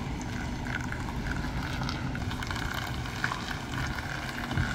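Diesel engine of a semi-truck running at low speed while the tractor-trailer slowly reverses, a steady low drone.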